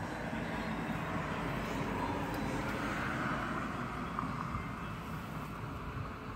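Steady noise of a distant engine, swelling to a peak about three seconds in and then easing off, as it passes.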